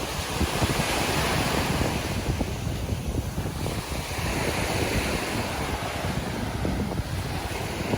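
Sea waves washing up on the shore: two surges of surf hiss a few seconds apart, with wind buffeting the microphone.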